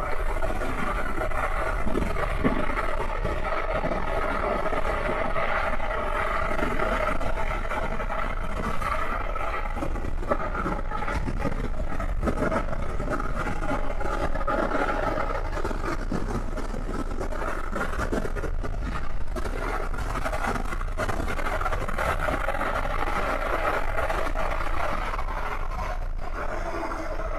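Wind buffeting the microphone of a moving electric bike, a steady low rumble, over a steady whine and tyre noise on the pavement at cruising speed.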